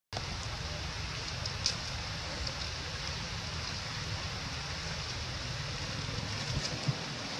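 Steady outdoor background hiss with a low rumble and a few faint clicks; no monkey calls.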